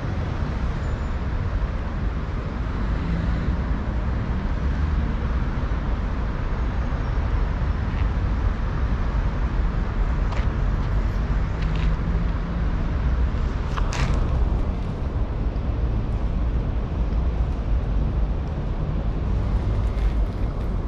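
Outdoor city-street ambience: a steady low rumble of traffic and street noise, with a few brief clicks or knocks about halfway through.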